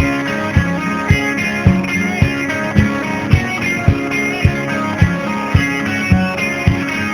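Instrumental opening of a country-rock song: guitars over a steady kick-drum beat, a little under two beats a second.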